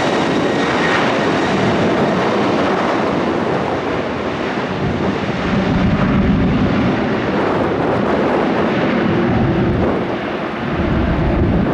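Airliner jet engines running loud and steady, with strong gusty wind buffeting the microphone as an uneven low rumble.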